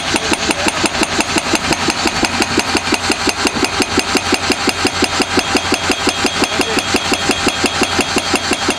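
CMB RB 26 hydraulic rock breaker on a Kato HD1430 excavator, hammering rock at a steady rate of about eight blows a second. Under it the excavator's diesel engine runs steadily, set to its economy throttle for the breaker.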